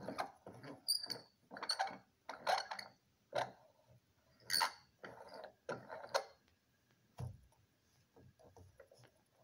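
A Bunsen burner being adjusted by hand, turned down from a tall yellow flame to a small blue one: a series of about a dozen short, irregular noises that stop after about six seconds, followed by a few faint ticks.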